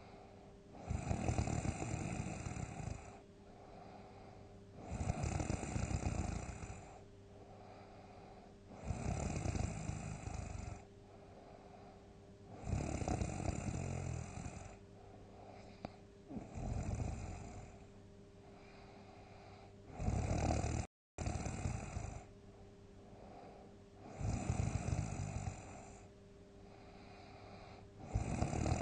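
A sleeping person snoring loudly and deeply: long, heavy snores come about every four seconds, with quieter breathing between them.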